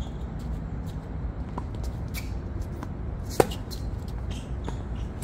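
Tennis rally on a hard court: a few faint, distant ball strikes and bounces, then one sharp pop of a racket hitting the ball about three and a half seconds in, over a steady low rumble.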